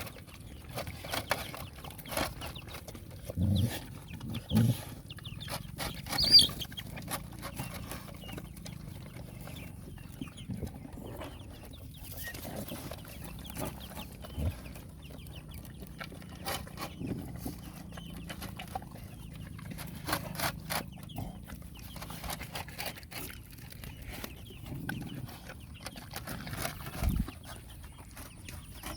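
Dogs eating food: scattered chewing and crunching clicks throughout, with two short low growls about three and a half and four and a half seconds in and a brief high squeal about six seconds in.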